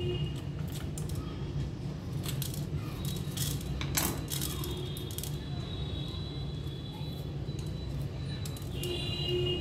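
Light clicks and scrapes of a small knife and fingers against a ceramic plate as a green chilli is slit and its seeds are scraped out, with one sharper click about four seconds in, over a steady low hum.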